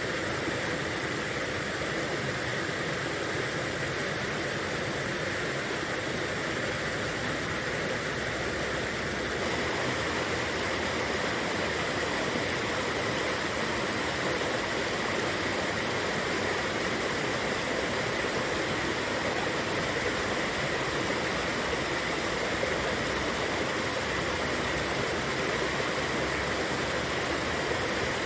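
A river babbling and gurgling steadily, growing slightly fuller about a third of the way in.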